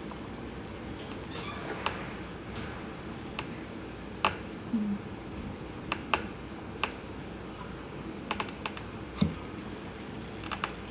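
Scattered light clicks and taps, about ten, irregularly spaced, as gloved hands handle a small plastic epoxy cup and a glitter tumbler on a cup turner, over a steady low hum.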